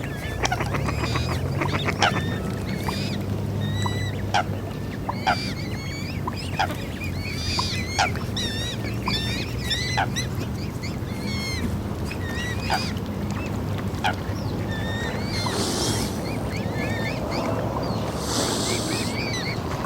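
A flock of waterfowl, among them swans, calling on the water: many short, overlapping honks and chirps over a steady low hum, with a couple of brief hissy bursts near the end.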